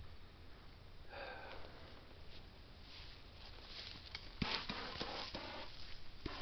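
Faint sniffing and breathing close to the microphone, then rustling and footsteps in grass near the end as a person walks away from it.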